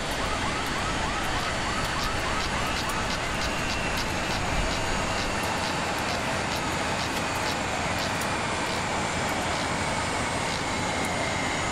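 Jet apron noise beside a parked airliner: a steady din with a high whine that sinks slowly in pitch. Over it come quick repeated chirps in the first second or so, then slower warbling tones.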